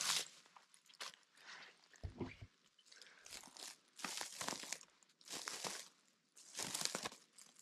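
Footsteps crunching and crackling through dry pine needles and twigs, roughly one step a second, with a short low thump about two seconds in.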